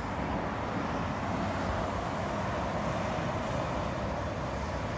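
Steady road traffic noise from a busy interchange: a continuous hiss of tyres and engines from passing vehicles, with no single event standing out.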